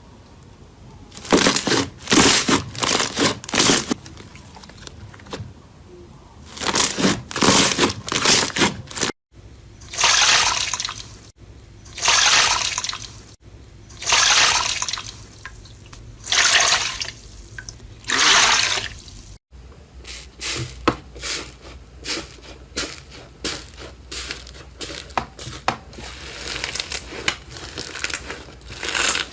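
Slime being squeezed and pressed by hand: wet squelching and crackling in repeated squeezes, then a run of small, quick pops and clicks in the last third.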